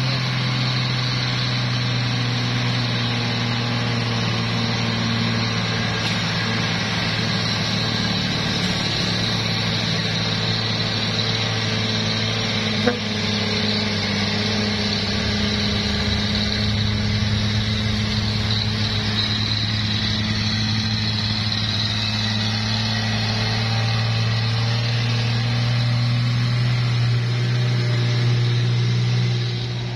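Diesel engine of a heavily loaded Mitsubishi tandem-axle truck pulling up a hill at steady revs as it passes close by, a steady low drone. A single sharp click about 13 seconds in.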